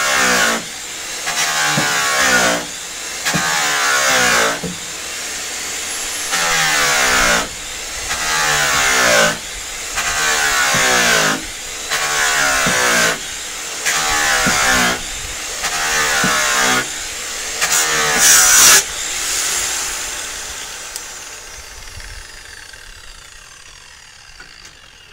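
Handheld electric polisher buffing an aluminium trailer panel during the cutting stage. It runs in surges about every two seconds, the motor pitch dropping in each. About 19 s in it is switched off and spins down, the pitch falling as it fades.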